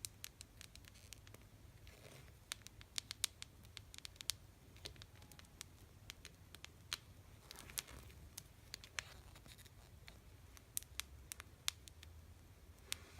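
Tapping on candy boxes: sharp, irregular clicks, some spaced out and some in quick little runs, with a few softer scratchy touches in between.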